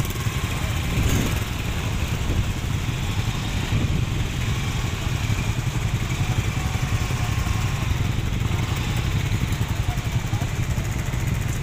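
Motorcycles and scooters idling in a slow-moving queue: a steady low rumble.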